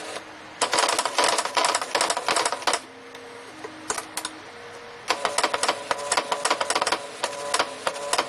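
Brother BP-30 typewriter plotter's four-pen mechanism drawing a bar chart: bursts of rapid clicking and rattling as the pens strike and the carriage and paper step. Between the bursts are quieter stretches with a faint motor hum.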